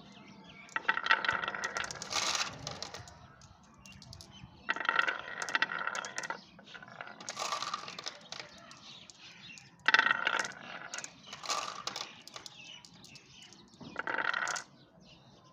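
Glass marbles rolling down the wavy grooves of a HABA wooden marble slope, clicking and clattering against each other and the wood. The clatter comes in several bursts of about a second each, with lighter ticking in between.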